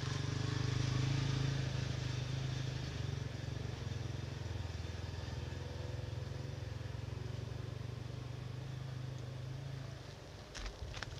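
A motor engine running steadily with a low hum, loudest in the first couple of seconds and fading out about ten seconds in.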